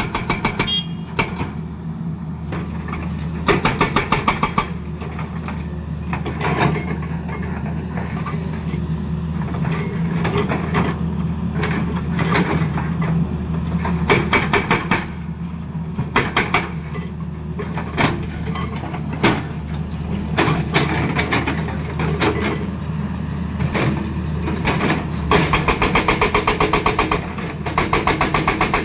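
Tata Hitachi excavator's diesel engine running steadily while its hydraulic rock breaker hammers rock in bursts of rapid blows, with scattered single knocks between bursts. Short bursts come a few seconds in and around the middle, and the hammering runs on through the last few seconds.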